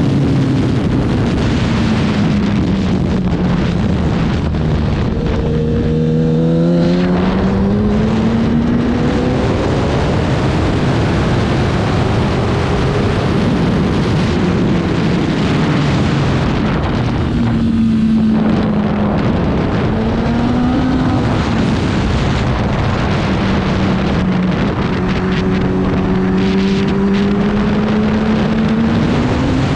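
Racing motorcycle engine running hard, its note climbing and falling repeatedly as the bike accelerates and slows, with a short break in the note about two-thirds of the way through. Heavy rushing wind and road noise run under it.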